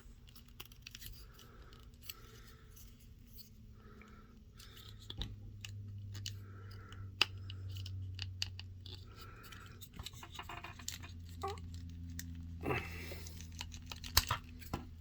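Plastic action figure being handled as its head is worked off: scattered small clicks, creaks and scrapes of plastic parts, with a few sharper snaps near the end.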